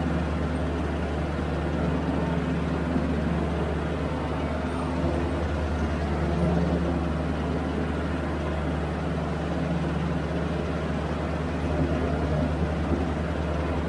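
Diesel engine of a Toro Groundsmaster 3280D ride-on mower running steadily as the mower drives along, heard from the operator's seat.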